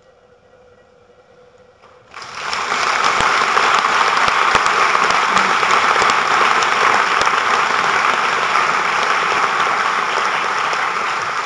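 Audience applauding in a hall, breaking out suddenly about two seconds in and staying loud and steady.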